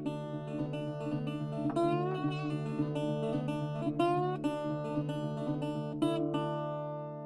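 Acoustic guitar picked in a folk style, several notes sliding up in pitch, ending on a chord left ringing that fades away.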